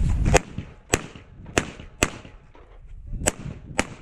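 Pistol fired six times in quick strings at a practical-shooting stage: single shots, then two pairs about half a second apart, with a pause of over a second in the middle, each crack followed by a short echo.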